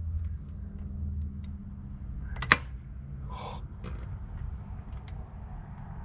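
Hands fitting intake parts in a car's engine bay: a few small ticks and one sharp click about two and a half seconds in, then a short scrape, over a steady low hum.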